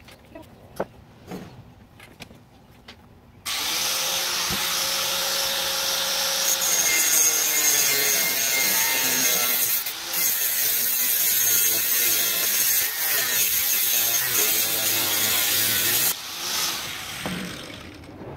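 Corded angle grinder cutting through metal tubing: it starts suddenly about three and a half seconds in, grinds steadily with a high whine for about twelve seconds, then is switched off and winds down. A few light knocks from handling the metal come before it starts.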